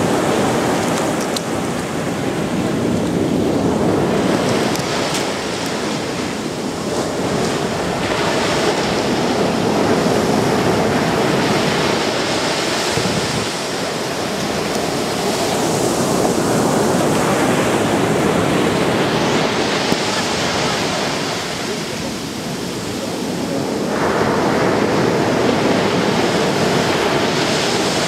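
Mediterranean surf breaking and washing up a pebble beach: a continuous rushing that swells and eases in surges several seconds apart.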